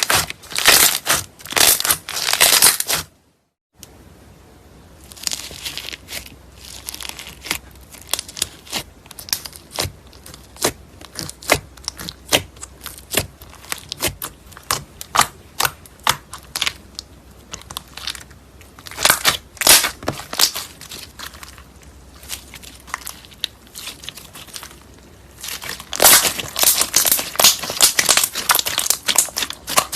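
Slime being squeezed and pressed by hand, giving bursts of crackling, crinkly pops, with a brief silent break about three seconds in and the loudest bursts near the middle and toward the end.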